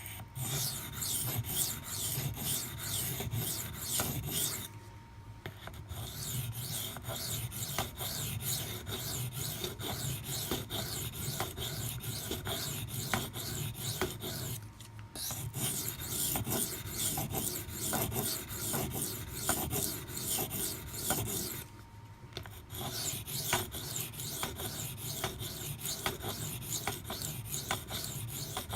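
A Maxamet-steel knife blade stroked rapidly back and forth on a 400-grit CBN waterstone, a steady rasping scrape with three short pauses, grinding a chip out of the edge.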